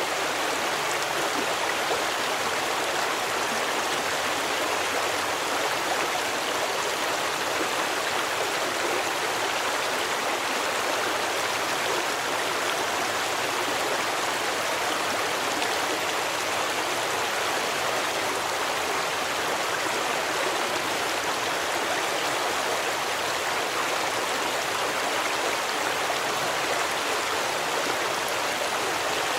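Forest stream flowing over rocks: a steady, even rushing of water with no change.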